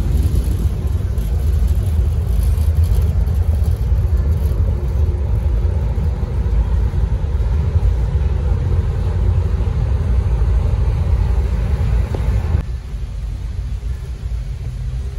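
Steady low rumble of a car ferry under way, heard on the open deck with wind noise over it. About twelve and a half seconds in it drops to a quieter, duller rumble inside the passenger cabin.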